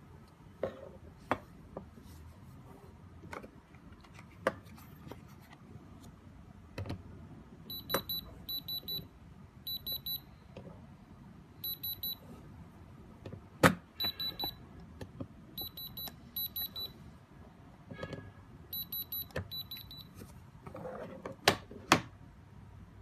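An electronic alarm beeping, a high tone in short runs of quick beeps with pauses between, starting about eight seconds in and stopping near twenty. Sharp clicks and knocks come throughout, the loudest two near the end.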